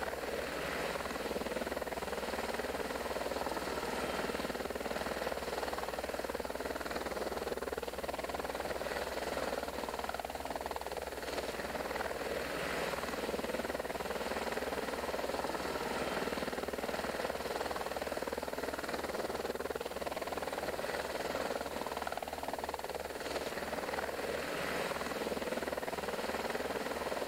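Steady running noise of an AH-64 Apache attack helicopter in flight, an even rotor and turbine noise that holds unchanged throughout.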